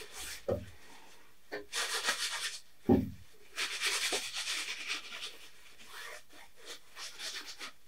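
Crumpled kitchen towel rubbed over a wet oil-painted canvas in several scrubbing passes of about a second each, softening the brush lines in the sky and lifting off paint. A short low bump about three seconds in.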